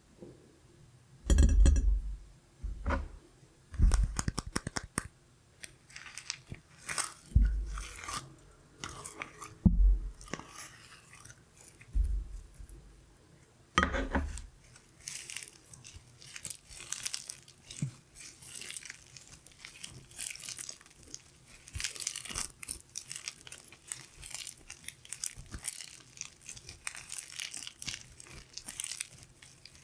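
Glitter slime being squished and stretched by hand, making irregular sticky crackles and clicks. A few heavier thumps come in the first half, and the crackling grows denser later on.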